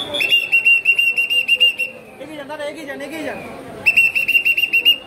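A high-pitched whistle blown in two runs of rapid short blasts, the second starting just under four seconds in, with crowd voices in the gap between.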